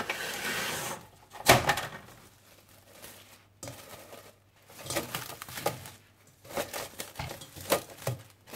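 Plastic crinkling and rustling as a cover is handled over a bowl of dough, with a sharp knock about a second and a half in and scattered light clicks and rustles after.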